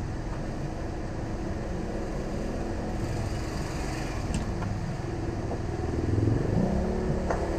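Motor vehicle engines running in passing road traffic, a steady low hum with one engine rising in pitch about six seconds in.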